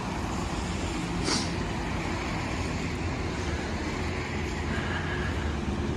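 Steady outdoor background of road traffic rumbling beside a seafront promenade, with a short hiss about a second and a half in.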